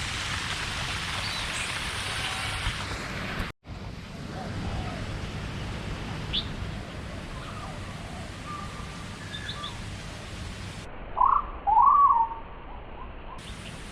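Birds calling over a steady hiss: scattered short chirps, then near the end two loud swooping calls, the loudest sounds here. The hiss is heavier for the first few seconds and drops away at a sudden break.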